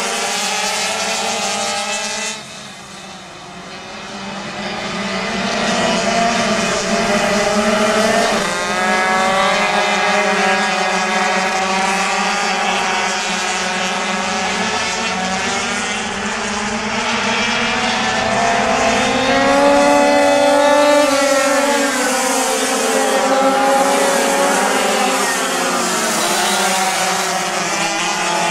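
Several pocket bikes racing, their small two-stroke engines whining at high revs, pitch rising and falling as riders throttle through the corners. The sound drops suddenly about two seconds in and builds again over the next few seconds as the bikes come closer.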